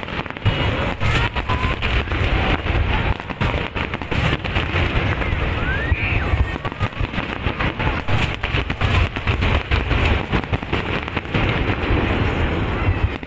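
Aerial fireworks display: shells bursting overhead in a rapid, continuous string of bangs and crackles with a deep low rumble.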